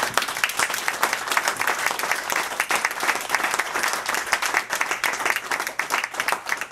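A small audience applauding, many hands clapping steadily.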